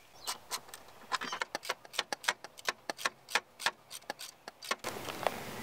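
Ratchet wrench clicking in a quick, uneven series, about five clicks a second, as the intake's mounting bolts are tightened. The clicks stop near the end.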